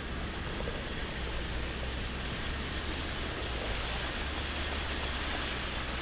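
Steady low rumble and hiss of a vehicle running, with no distinct events.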